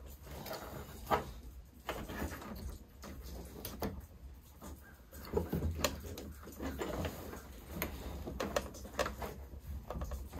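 Hands working wires and a plastic electrical connector: scattered small clicks, taps and rustles over a steady low hum.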